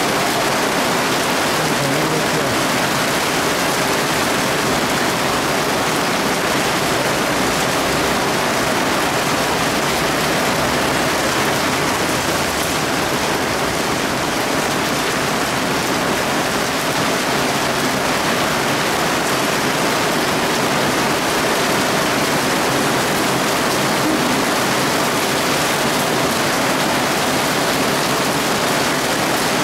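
Heavy thunderstorm rain pouring down: a loud, steady hiss of downpour that does not let up.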